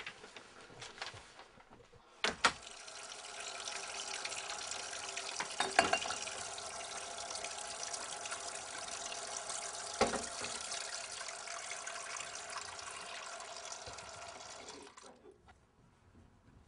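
Kitchen tap running into a sink while dishes are washed, with a few sharp knocks of crockery; the water starts about two seconds in and stops near the end.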